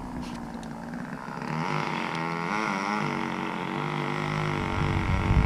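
Engine of a nearby vehicle running, its pitch wavering up and down.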